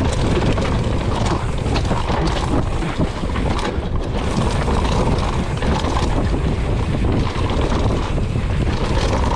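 Wind buffeting the camera microphone during a fast mountain-bike descent, with the bike rattling and clicking over the trail.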